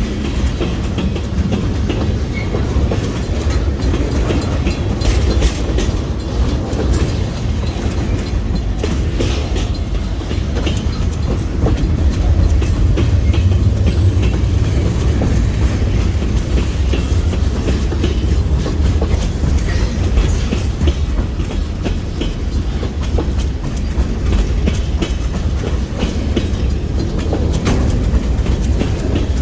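Freight train cars rolling steadily past close by: a continuous low rumble with rapid clickety-clack of steel wheels over the rail joints.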